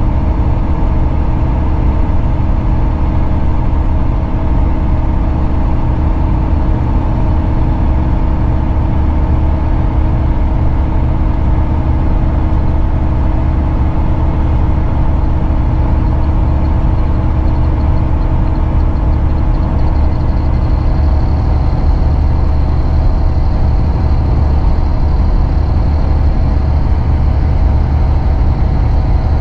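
Volvo B9R coach's nine-litre six-cylinder diesel and road noise heard from inside the passenger cabin while running at a steady pace: a steady low drone with no gear changes. A faint high whine comes in about two-thirds of the way through.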